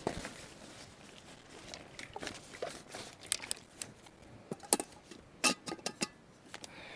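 Camping gear being handled: rustling and crinkling with scattered sharp clicks and knocks, the loudest a little after halfway.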